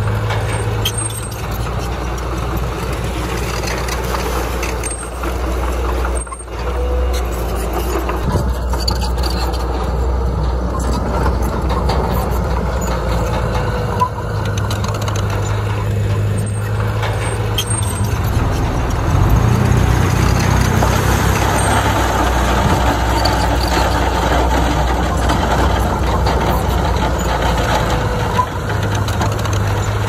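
Diesel engine of a Komatsu D31PX crawler bulldozer running under load as it pushes stone, a steady low drone whose pitch shifts a few times and gets louder about two-thirds of the way through.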